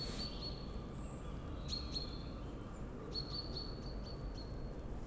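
Small songbird calling: high, thin whistled notes in three spells, the longest held for almost two seconds near the end, over a steady low background hum.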